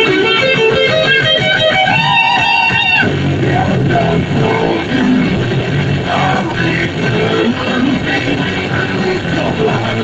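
Rock music with electric guitar; a held, wavering lead note cuts off about three seconds in and the full band carries on.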